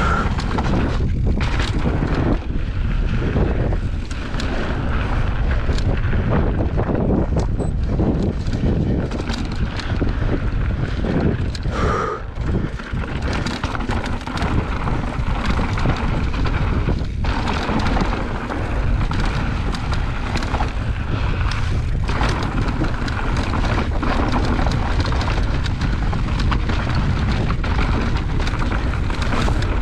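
Wind buffeting an action camera's microphone over the clatter and knocks of an electric mountain bike (a 2020 Specialized Turbo Levo) rolling fast over a rocky dirt trail.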